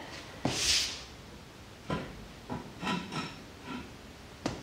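Scattered light knocks and a short scraping hiss about half a second in: handling noise as a string line is drawn tight between jack stands.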